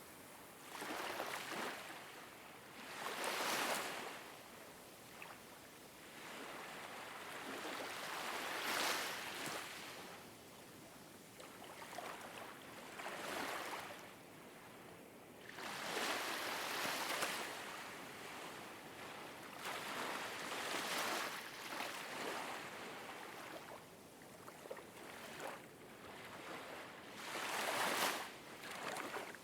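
Ocean waves washing in, a swell of surf rising and falling every few seconds over a steady hiss.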